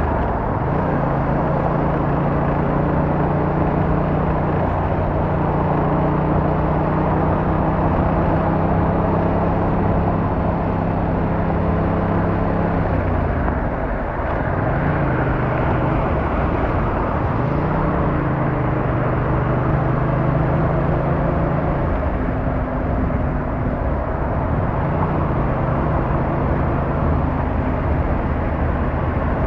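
Yamaha MT-07's 689cc inline-twin engine under way, holding steady revs for the first half. It eases off about halfway, then picks up again in a couple of short rises before settling, over a constant rush of wind and road noise.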